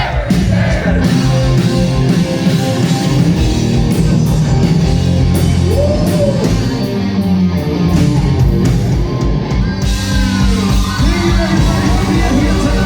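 Live rock band playing loud: electric guitar, bass and drums with a singing voice over them.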